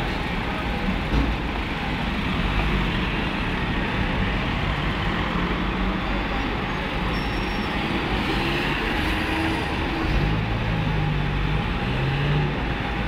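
Steady street noise with a low engine rumble from vehicles standing by, and a few faint voices in the last few seconds.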